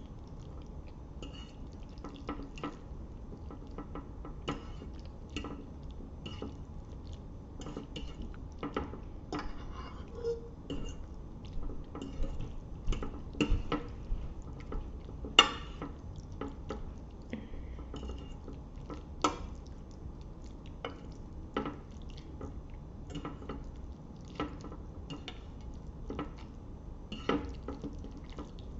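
Utensils clinking and scraping against a plate as a plate of spaghetti with meat sauce is mixed, in many short irregular clicks, the sharpest about fifteen seconds in.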